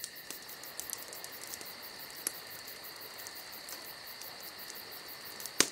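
Night insects chirping in a steady high trill, with small crackles from a wood fire burning in a fire pit and one sharper crack near the end.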